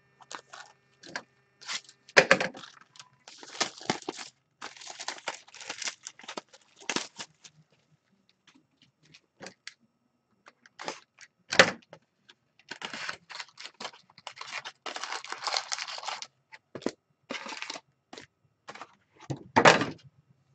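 Upper Deck Artifacts hockey card packs being torn open and the cards handled: irregular tearing, crinkling and rustling, with three louder sharp rips or knocks.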